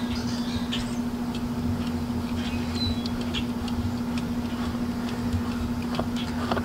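A steady low hum, with faint scattered clicks as a spin-on oil filter is turned off by hand on a Mercury 150 four-stroke outboard; two sharper clicks come near the end.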